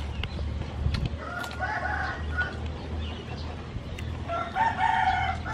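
A rooster crowing twice, each crow about a second long, over a steady low hum.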